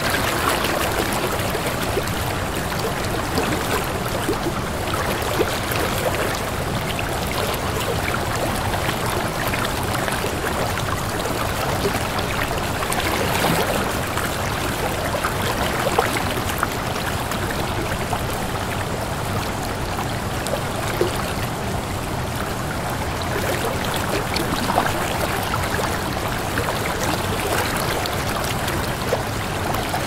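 Small waterfall splashing steadily into a rocky pool, an even rush of falling water with a few brief louder splashes.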